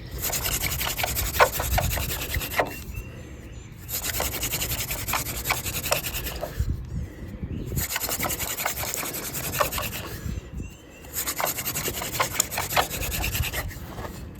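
Hand drill for friction fire: a yucca spindle spun back and forth between the palms, rubbing in a water oak fire board to build an ember. It goes in four runs of about two and a half seconds, with short breaks as the hands are reset at the top of the spindle.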